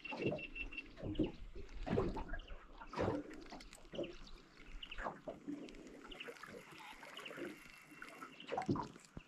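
Small waves lapping and slapping against the aluminium hull of a Quintrex 430 Fishabout boat, in irregular knocks and splashes one or two a second.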